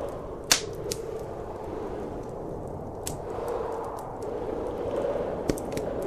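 Wood fire crackling with a few sharp pops, the loudest about half a second in and a close pair near the end, over a steady rushing of blizzard wind.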